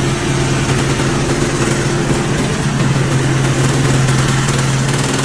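An engine running steadily, a constant low hum that stops near the end.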